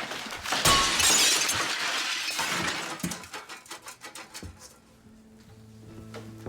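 Glass shattering: a sudden crash about a second in that fades out over the next two seconds or so. Low, sustained music comes in near the end.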